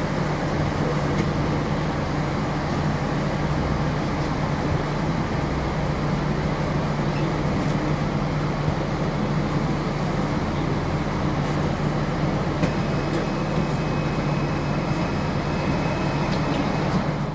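NefAZ 5299 city bus heard from inside the passenger cabin, standing still with its engine idling: a steady low hum under a constant wash of cabin noise.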